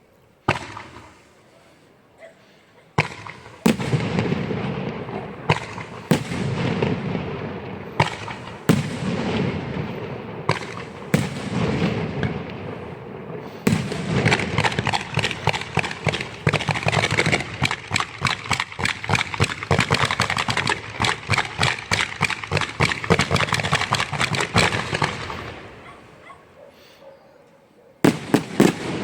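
Fireworks display: single loud bangs every second or two, each followed by a rumbling echo, then from about halfway a dense barrage of rapid cracks that tails off, with fresh bangs near the end.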